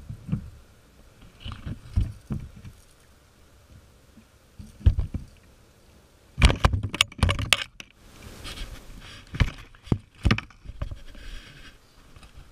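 Scattered knocks, scrapes and rattles against a plastic kayak hull as a freshly caught Spanish mackerel is unhooked and handled on the deck, with a quick flurry of knocks about six and a half seconds in.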